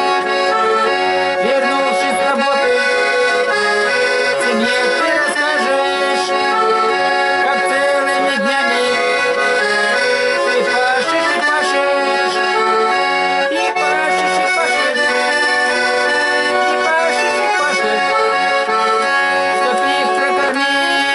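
Instrumental break of a song: sustained chords under a moving melody line, with no singing.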